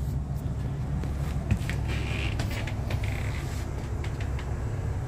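Ford Triton V10 gas engine idling with a steady low rumble, with scattered light creaks and taps over it.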